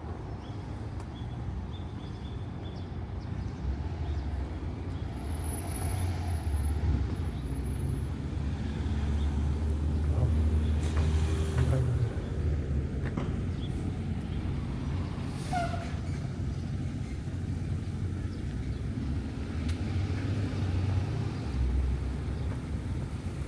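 City street traffic: vehicles going by with a steady low rumble that swells loudest about halfway through and again near the end.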